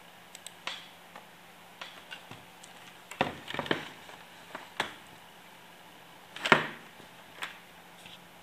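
Irregular light clicks and knocks from handling the touch panel and its controls, with a quick cluster about three seconds in and the loudest knock about six and a half seconds in, over a faint steady hum.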